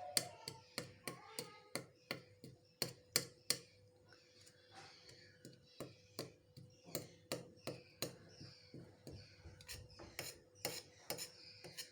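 A utensil tapping and scraping in a bowl, mashing egg and its crushed shell into breadcrumbs: a string of short clicks and knocks, two or three a second, unevenly spaced.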